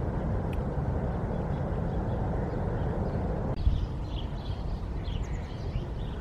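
Outdoor background noise: a steady low rumble. About three and a half seconds in, the sound changes abruptly and faint high chirps appear over a quieter rumble.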